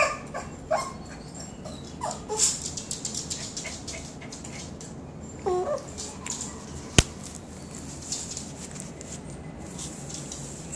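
A Chihuahua barks a couple of short times near the start, with its claws ticking on the floor. About halfway through it gives a short falling whine, the grumbling of a sulking dog that wants attention. A single sharp click about seven seconds in is the loudest sound.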